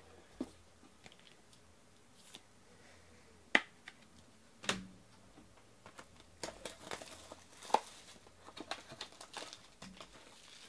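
Cardboard trading-card box being handled and opened by hand: a couple of sharp clicks a few seconds in, then a run of quick rustles and clicks from about six seconds in as the box is pulled open.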